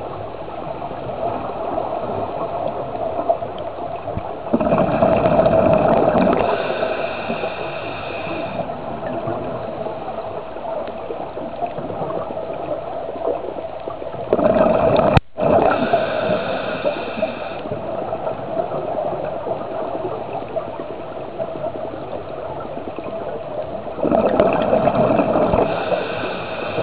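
Scuba regulator breathing heard underwater: three loud bursts of exhaled bubbles, about ten seconds apart, over a steady hum. The sound cuts out for an instant just after the second burst.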